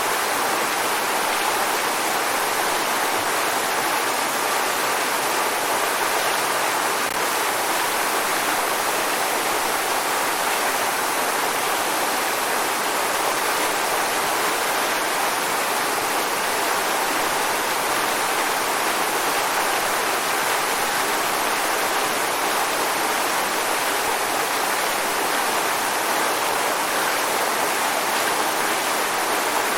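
A waterfall rushing, a steady even roar of falling water.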